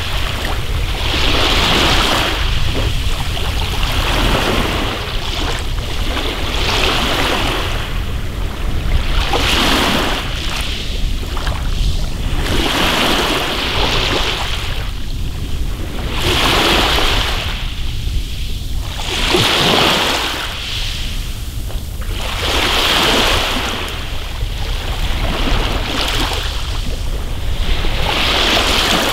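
Small waves washing up a pebble beach. Each wash brings a hiss that swells and fades, about every three seconds, over a steady low rumble.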